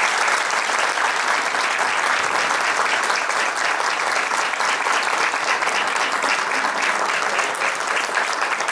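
Audience applause: many people clapping steadily, a dense clatter of hands that holds at one level throughout.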